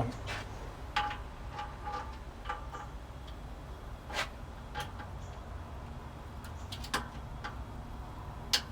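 Scattered metallic clicks and clinks of a torque wrench and socket being handled and moved onto the next bolt, between bolts being torqued to 50 lb-ft in sequence; a few of the clicks ring briefly.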